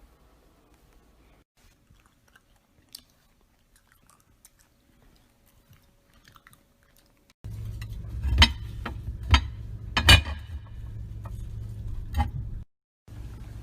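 Close-up eating sounds: faint mouth clicks at first, then about halfway in a louder stretch of biting and chewing crunchy food, with four sharp crunches roughly a second apart over a low hum.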